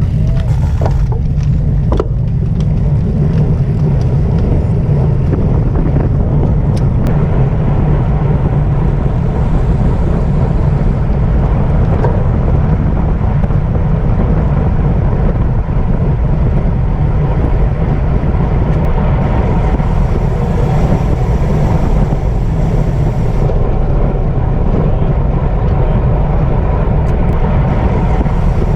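Loud, steady wind rumble buffeting the microphone of a camera carried on a racing bicycle.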